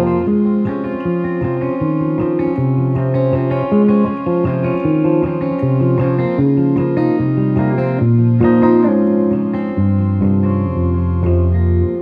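Instrumental passage of an acoustic-style song: a semi-hollow electric guitar with a capo plays a picked melody over long sustained harmonium chords.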